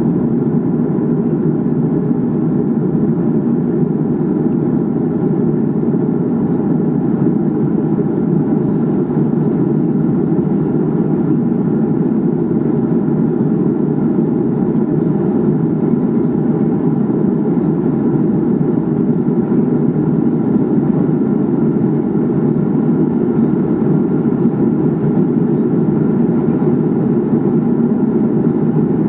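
Steady airliner cabin drone heard from a window seat on an Airbus A300-600R in flight: engine and airflow noise, loud and even, low and unchanging.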